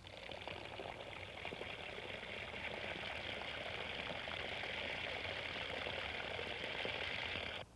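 Water running from a standpipe tap into a clay pot, a steady pouring splash that grows slowly louder and stops abruptly near the end.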